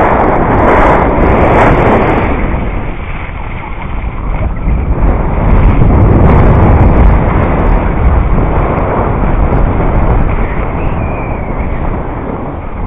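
Wind rushing over an action camera's microphone while skiing downhill, mixed with skis sliding over snow. The rush is loud and unsteady, swelling and easing through the run.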